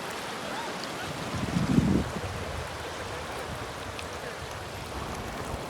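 Waterfall water rushing steadily, with a brief low rumble about a second and a half in.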